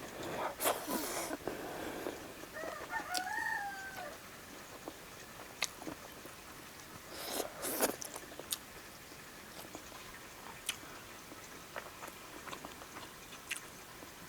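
A rooster crowing once, about three seconds in, a single wavering call of about a second and a half. Around it are the sounds of someone eating: chewing, with short clicks and a few louder noisy bursts near the start and about eight seconds in.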